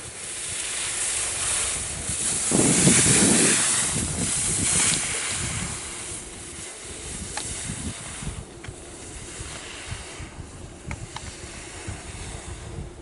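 Skis hissing and scraping over snow as a skier carves past close by, swelling to the loudest point about three seconds in and then fading. Wind buffets the microphone in low thumps through the quieter rest.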